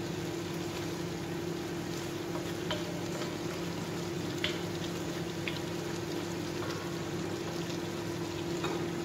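Chicken simmering in sauce in a wok, a steady sizzle and bubbling, while a wooden spatula stirs it and clicks against the pan a few times. A steady low hum runs underneath.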